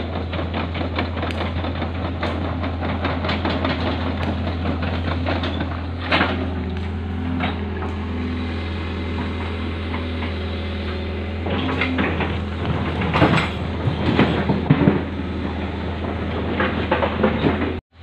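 Tracked hydraulic excavator's diesel engine running steadily, with the clanking rattle of its steel tracks and machinery on gravel and stones and a few louder knocks.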